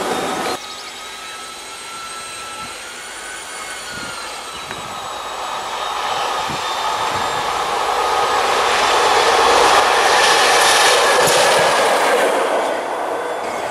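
Freight train hauled by a BB 69200-class diesel locomotive approaching and passing, its rumble and rush growing to its loudest about ten seconds in, then easing slightly near the end.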